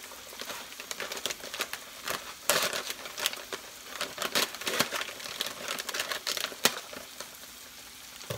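Plastic bag of dry stuffing mix crinkling and crackling in a stream of sharp little crackles as it is handled and pulled open.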